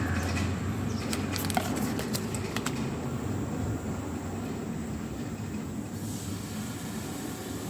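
Steady low background rumble, with a few light clicks of handling in the first three seconds.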